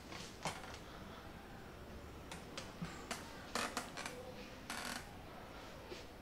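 Faint rustling and small clicks from a person moving on a chair, hands rubbing through long hair and a cotton hoodie, in a scattered series of short brushes.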